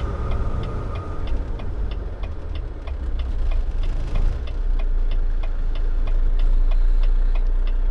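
Car turn signal ticking at a steady quick pace, about three ticks a second, over the steady rumble of engine and road noise inside the moving vehicle.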